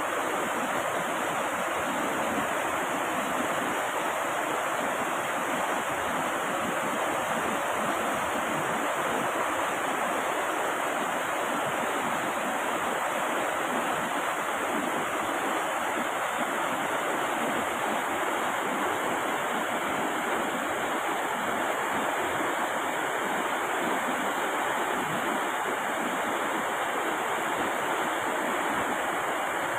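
River swollen with muddy floodwater after heavy rain, rushing fast over and around rocks as a steady, unbroken rush of water.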